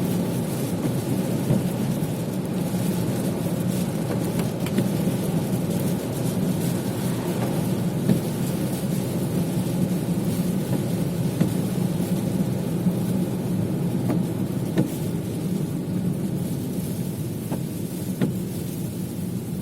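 Steady rumble of a car driving on the road, engine and tyre noise, with scattered light ticks.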